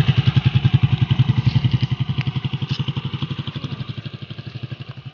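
Small motorcycle engine running with an even, rapid exhaust putter as the bike pulls away. It is loudest at first and gradually fades over the last couple of seconds.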